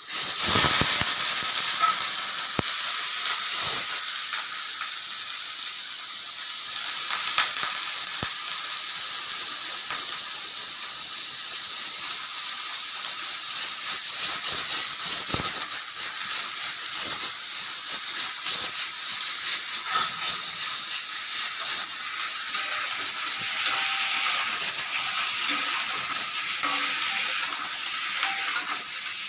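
Steady high hiss of steam venting from a pressure cooker, mixed with the crackling sizzle of potatoes frying in oil.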